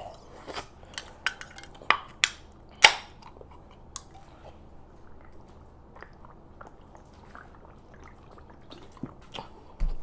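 Close-miked chewing and mouth sounds while eating: a run of sharp wet clicks and smacks in the first few seconds, then quieter chewing.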